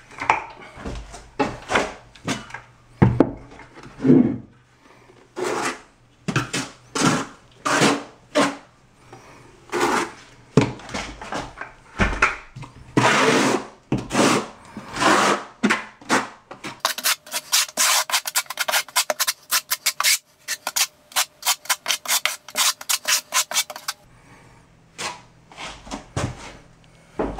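Steel notched trowel scraping and spreading thinset mortar across a shower bench seat in repeated strokes. In the second half comes a fast run of short, sharper scrapes.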